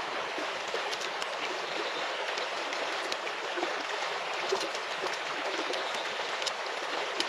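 A shallow river running over stones: a steady rushing, with a few faint clicks scattered through it.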